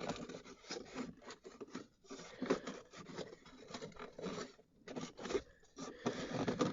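Plastic instrument cluster bezel being pressed and worked into a Honda's dashboard: irregular rubbing and scraping of trim against trim, with short clicks.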